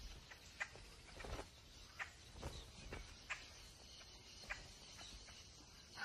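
Vultures' beaks pecking and tugging at a carcass's tough hide: a few faint, scattered taps and clicks over a quiet background.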